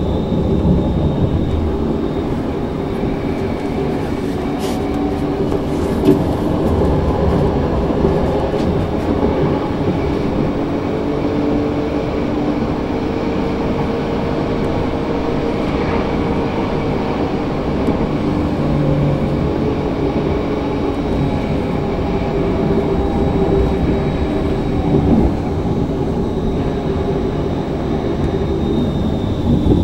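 Bombardier Flexity Outlook C six-axle low-floor tram running, heard from on board: a steady rumble of wheels on rail with motor tones that drift slowly up and down in pitch. A thin high whine is present at the start, fades away, and comes back near the end.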